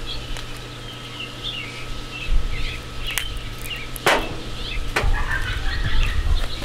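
Small birds chirping in the background, with a few sharp clicks and knocks of spice jars being handled and set down; the loudest knock comes about four seconds in.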